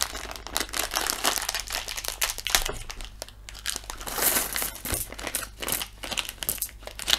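Board-game pieces being handled out of their box, with packaging crinkling in irregular rustles and small clicks, a little louder about four seconds in.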